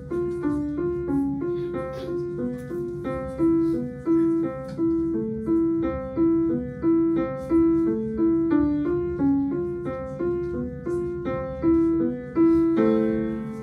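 Instrumental keyboard music: a steady, even line of separate notes over a low sustained drone, settling on a held chord near the end.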